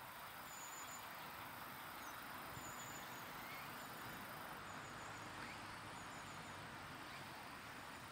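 Faint rural ambience: a steady soft hiss with short, high insect chirps, typical of crickets, repeating about once a second.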